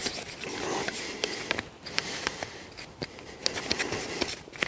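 Toothbrush scrubbing oil around inside a shotgun's steel action: bristles rasping in short, irregular strokes, with scattered light clicks.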